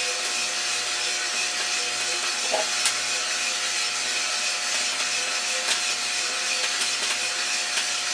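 iRoaster 600 coffee roaster running, with beans tumbling in its drum: a steady whir of motor and fan with a faint steady hum, and a few scattered sharp clicks.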